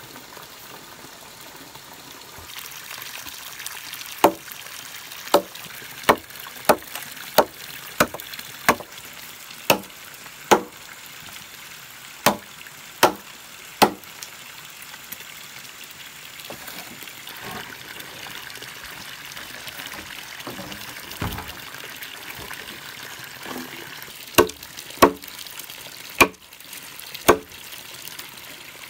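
A run of sharp, briefly ringing knocks, a bit more than one a second, that stops, then starts again for a handful more near the end, over a steady hiss like running water.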